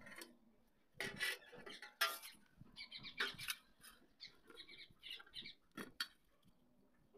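Dry clay powder poured and scraped out of a plastic tub onto a steel plate, in short bursts of rustling and pattering against the metal, with a few sharp knocks and scrapes.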